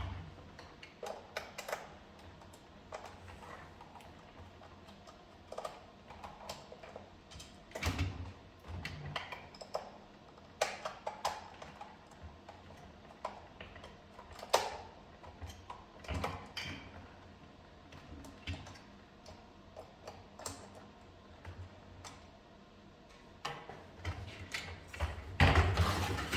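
Irregular small clicks, taps and knocks of hands working on the hard plastic parts of a cordless stick vacuum, as its casing is taken apart to reach the battery.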